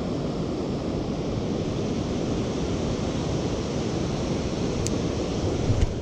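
Fast river rapids rushing in a steady, even roar. A short low thump comes near the end.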